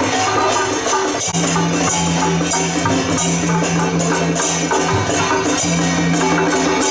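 Loud traditional procession music: rapid percussion with cymbal-like clashes and a wood-block knock over sustained melodic tones. The music changes abruptly about a second in.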